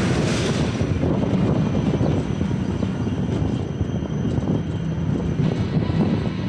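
Wiegand CoasterKart rolling along its steel track, a steady low rumble of wheels on rail. It is brighter and fuller at the start, while the kart is in a corrugated metal tunnel, and eases after about a second.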